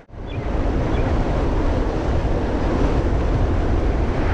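Wind rushing over the microphone of a moving mountain bike, a steady roar heaviest in the low end, with the rumble of the ride along the trail underneath.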